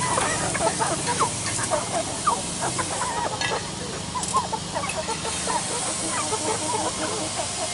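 Many caged chickens clucking, with short overlapping calls throughout, over a steady background hiss and a faint low hum.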